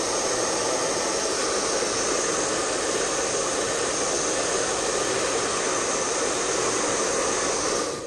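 A Chaoba 2000-watt handheld hair dryer running steadily, a rushing whir with a high whine, blowing straight at a card; its air blows the loose embossing powder off the paper rather than melting it. It switches off at the very end.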